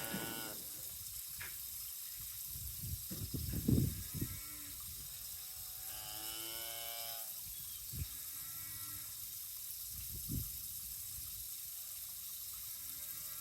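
A cow mooing once for about a second, a little past the middle, with a fainter call just before it. Several dull thuds are heard, the loudest a few seconds in.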